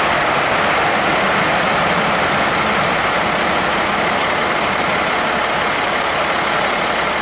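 Jet engine noise from four Blue Angels F/A-18 Super Hornets climbing away in formation just after takeoff: a loud, steady rushing roar.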